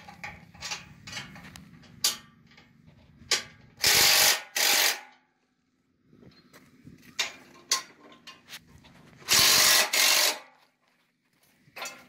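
Cordless power driver spinning nuts loose on a steel sawmill track's bolts: two short bursts close together about four seconds in and one longer burst near ten seconds, among light clicks.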